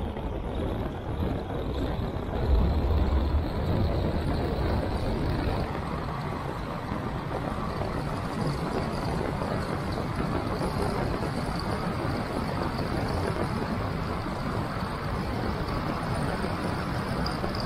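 Steady rush of wind over an action camera's microphone, mixed with the hiss of a bicycle tyre rolling on asphalt during a fast downhill ride. About two and a half seconds in, a louder low buffet lasts for about a second.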